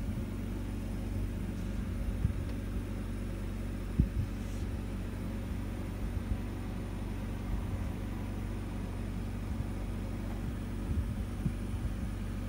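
Steady low hum and rumble of a deep-sea submersible's machinery, heard from inside the cabin, with a few soft knocks, the sharpest about four seconds in.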